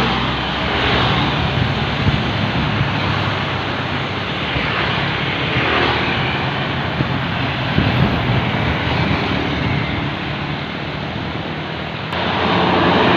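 Busy road traffic passing close by: bus and vehicle engines with a broad rush of tyre and road noise that swells and eases as vehicles go past.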